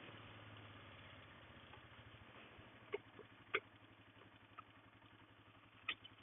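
Faint engine idling steadily, with a few sharp clicks about three seconds in, half a second later, and near the end.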